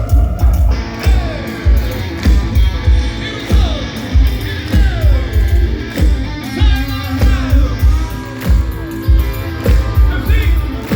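Live band playing a synth-pop song, with a steady, heavy kick-drum beat under gliding synth lines.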